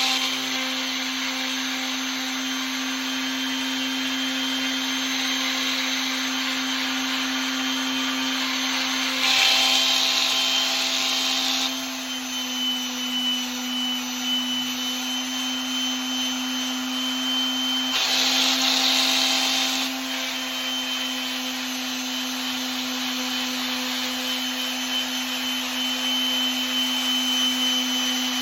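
Electric sander fitted with 320-grit sandpaper running steadily on the brass head of a hickory putter, a constant motor hum under a sanding hiss. The hiss grows louder for a couple of seconds twice, about ten and eighteen seconds in.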